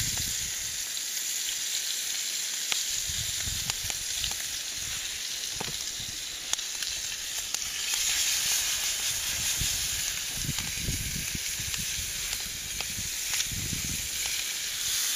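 Perch frying in vegetable oil in a skillet over a campfire: a steady sizzle with scattered sharp pops. The sizzle gets louder about halfway through.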